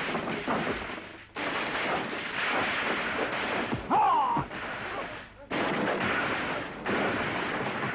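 Kung fu fight sound effects: a dense run of dubbed punch and swoosh hits, dropping out briefly twice, with a short yell about four seconds in.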